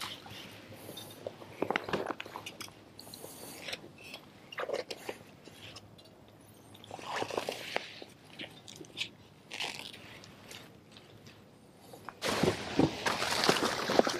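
Kayak paddle strokes in the water every couple of seconds, with splashing and dripping from the blade. About twelve seconds in, the kayak pushes into thick lily pads and a louder rustling and scraping of leaves against the hull takes over.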